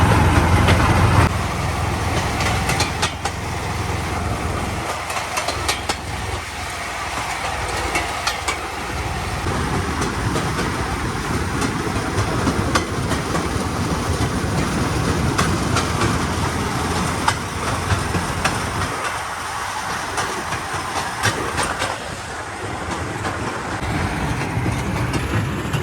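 Steady running noise of a moving vehicle, with frequent rattling clicks throughout.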